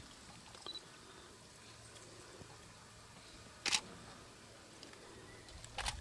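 Two short, sharp clicks of camera handling, one about three and a half seconds in and another near the end, over a quiet, faint background.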